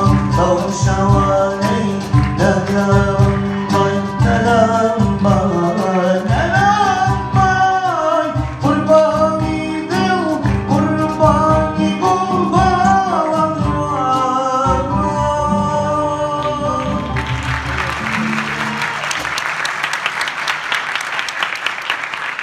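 Live acoustic ensemble of oud, violin and guitars with a man singing, over a low beat. About 17 seconds in the music stops and the audience applauds.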